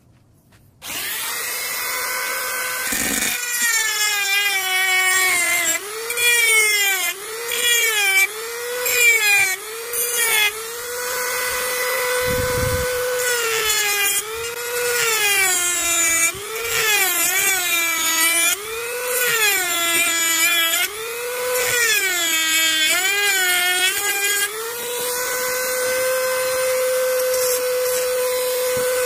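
Handheld mini grinder (rotary tool) starting up about a second in and grinding coconut shell. Its whine sags in pitch again and again as the bit bites into the shell and recovers between passes, then runs steady near the end.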